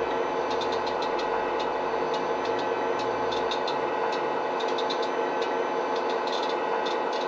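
DCC sound decoder in a Hornby Class 59 model playing a recorded EMD 645 two-stroke diesel idling, heard through the model's small speaker as a steady engine drone. Faint irregular ticks sound over it.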